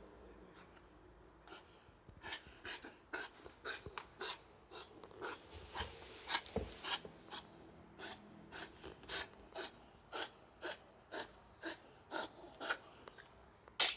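A dog with kennel cough coughing and sneezing in a long run of short, sharp bursts, about two a second.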